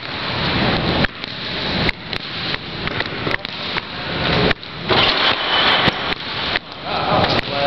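Basketballs bouncing and sneakers on a hardwood gym floor, heard through a camera resting on the floor, buried in a loud rushing hiss that swells and cuts back about once or twice a second.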